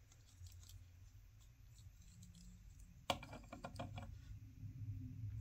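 Plastic Gundam model kit being handled: quiet at first, then about three seconds in a quick run of light plastic clicks followed by soft rustling handling noise.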